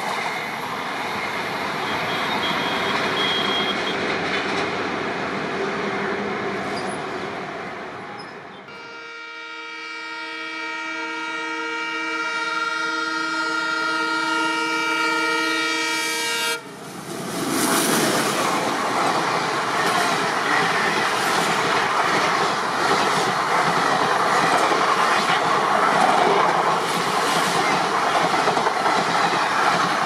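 Train running noise, then a locomotive's multi-tone air horn sounding one long steady blast of about eight seconds. After it, a passenger train rushes past close by, its wheels clattering over the rail joints.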